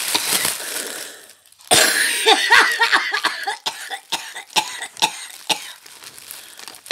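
Plastic and paper packaging crinkling and crackling as a parcel is unwrapped by hand, ending in a string of sharp irregular crackles. A short burst of a woman's voice, like a cough, breaks in about two seconds in.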